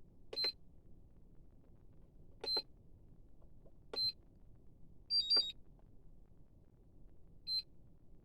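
Hobby LiPo balance charger giving short high electronic beeps as its buttons are pressed to set up a balance charge: four single beeps spaced a second or two apart, and a quick two-tone double beep about five seconds in.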